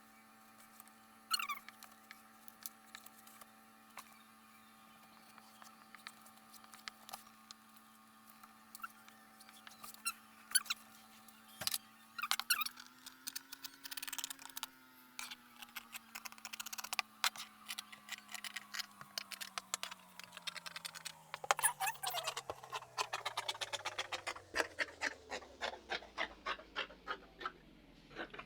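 Scissors cutting fabric, with rustling: a run of short, sharp clicks that grows busier in the second half. Under it runs a steady low hum that rises a little about halfway, then sinks steadily in pitch toward the end.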